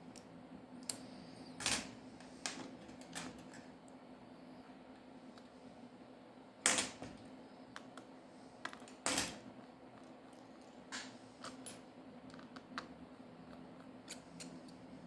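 Small clicks and taps of repair tools on a smartphone's internal parts, as flex-cable connectors are worked loose, with three louder clicks about two, seven and nine seconds in, over a low steady hum.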